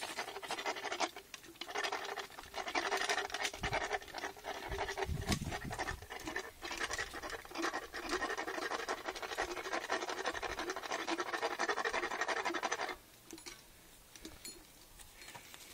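Equine dental hand float rasping back and forth over a horse's molars: fast, continuous scraping strokes of metal file on tooth, with a brief pause about a second in, stopping suddenly near the end.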